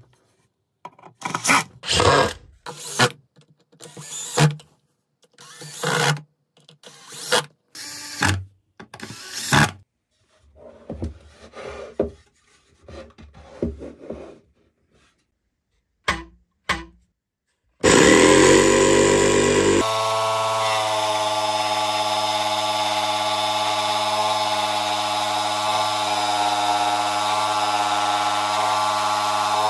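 A cordless drill drives screws in a series of short bursts. About 18 seconds in, a jigsaw mounted under a table top starts up and runs with a steady buzz while cutting a wooden board.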